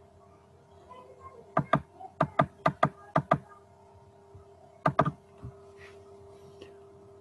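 Computer mouse clicks: a quick run of eight sharp clicks in pairs from about a second and a half in, then two more about five seconds in. A faint steady hum sits underneath.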